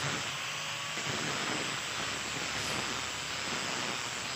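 Angle grinder running steadily as it smooths and shapes a wooden slingshot stock: an even grinding hiss with a faint motor whine.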